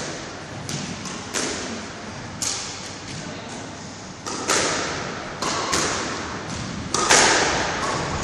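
Squash ball being struck by rackets and hitting the court walls during a doubles rally: a string of about seven sharp, irregularly spaced knocks, each ringing briefly in the enclosed court, the loudest about seven seconds in.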